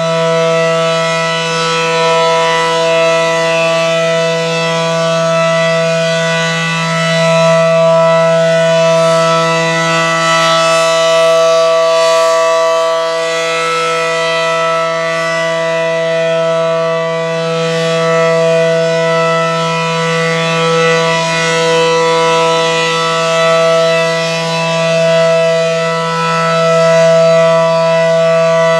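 ACA Allertor 125 outdoor warning siren sounding the steady Alert signal in its weekly test: one held tone at constant pitch, its loudness swelling and fading slowly.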